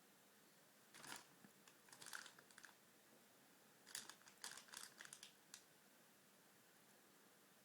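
Faint scratchy crackling from a cat playing with an orange, coming in three short spells: about a second in, around two seconds in, and a longer run of several clicks from about four to five and a half seconds in.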